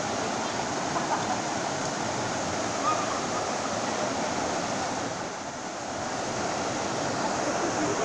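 Steady rush of river water flowing over rocks, an even continuous noise that dips slightly about five seconds in.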